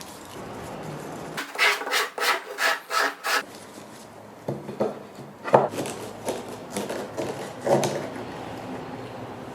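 A hand tool rubbing on wood in about six quick strokes, roughly three a second, then a few scattered wooden knocks and clatters.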